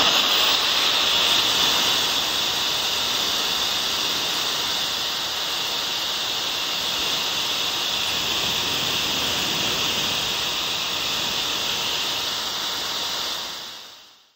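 Cordless drill spinning an abrasive attachment against the bare steel bottom bracket shell of a bicycle frame, a steady high hissing grind that fades away near the end.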